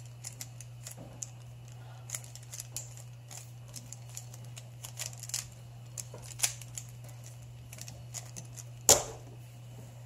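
Stickerless plastic 3x3 speed cube turned quickly by hand: irregular clicks and clacks as its layers snap round. A single louder knock about nine seconds in as the cube is set down on a wooden table.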